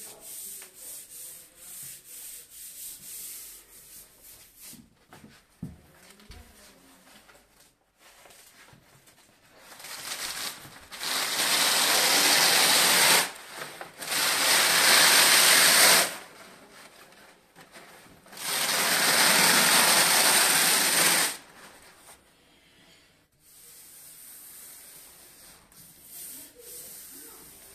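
Stiff self-adhesive scenic paper being rubbed and smoothed by hand onto a wall, with light rhythmic rubbing at first. About ten seconds in come three loud stretches of rasping paper noise, each two to three seconds long, as the sheet and its backing are handled and pulled at the lower edge.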